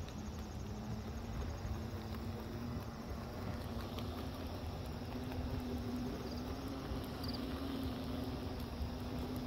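Hoverboard's hub motors humming at a steady, slightly wavering pitch while its small hard wheels rumble over a concrete path.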